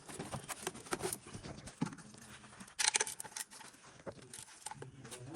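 Scattered metallic clicks and clinks of tools and parts being handled, with a louder burst of clatter about three seconds in.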